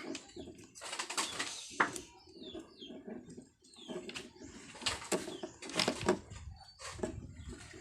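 Pigeons cooing in the background, mixed with scattered clicks and rustles from hands working on the TV.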